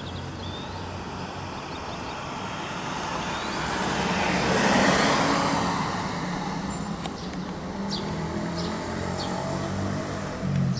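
A road vehicle passing by, its noise swelling to a peak about halfway through and then fading, over a steady low hum. A few short high chirps come in the second half.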